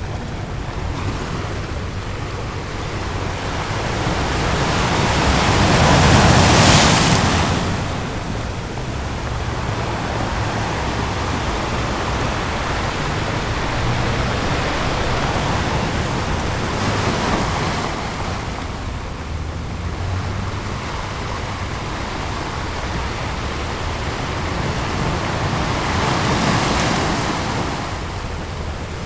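Ocean waves breaking on a beach: a steady rush of surf, with one big wave swelling and crashing about six seconds in and two softer ones later.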